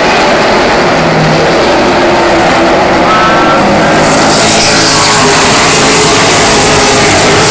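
A pack of Super Truck race trucks running hard around a short oval, several engine notes overlapping and rising and falling. The sound is loud, and about four seconds in it turns brighter as the trucks pass close by.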